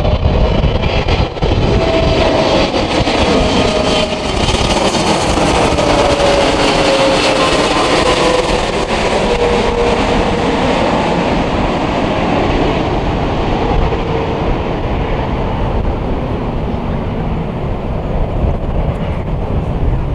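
Boeing 777 passing close overhead, its twin turbofan engines making a loud, steady rush of jet noise with a whining tone that slowly falls in pitch. The noise is strongest a third of the way through and eases off towards the end.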